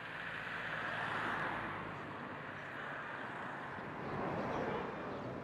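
Outdoor street ambience: an even rush of noise that swells about a second in and again near the end.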